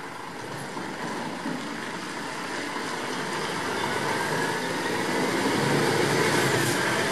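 Scania S-series truck engine pulling away with an articulated trailer, growing louder, with a rising whine over the second half as it gathers speed.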